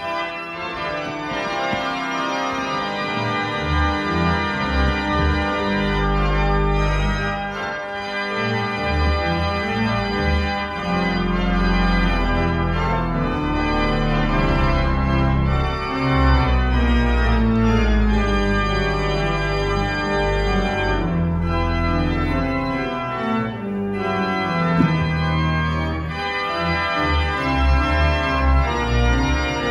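Church organ playing a closing voluntary after the dismissal: full sustained chords over a deep pedal bass, beginning abruptly.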